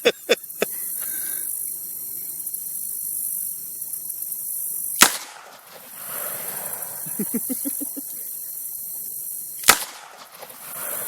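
.357 Magnum revolver firing full-power 158-grain loads: two single shots, about five seconds apart, each a sharp crack with a short ring after it.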